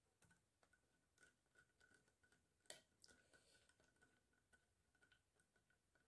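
Faint clicks and ticks of a screwdriver turning small screws into a soft plastic drive caddy holding a SATA SSD, with one sharper click a little under three seconds in.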